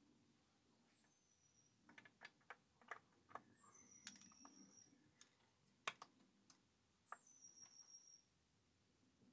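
Light metallic clicks and taps of oiled hydraulic lifters and spring caps being set by hand into the bores of a VW 16-valve aluminium cylinder head, the sharpest click about six seconds in. Three faint high whistles, each dipping in pitch and then holding for about a second, sound under them.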